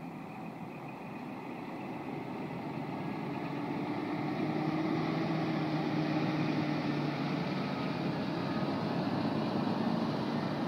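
Scania semi-truck's diesel engine and tyres as it pulls a tank-container trailer past at close range. It grows louder over the first four seconds or so as it approaches, then holds steady.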